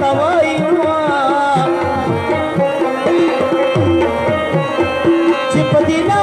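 Live Pashto folk music: tabla-style hand drums beat a busy rhythm under a held note and a wavering melody line.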